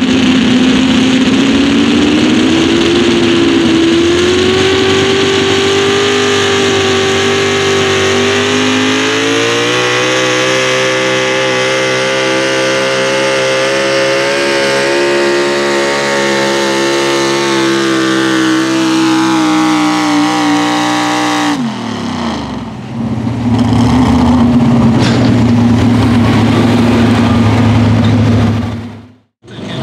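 Pro Stock four-wheel-drive pulling truck's engine at full throttle pulling the sled, its pitch climbing over the first ten seconds and then holding high. About two-thirds of the way in the engine is cut and the pitch falls away sharply, and a lower, steadier engine note follows.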